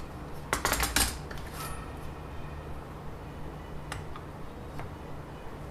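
Metal measuring square being handled against the device: a quick cluster of clinks and knocks about half a second to a second in, then two faint ticks near the end.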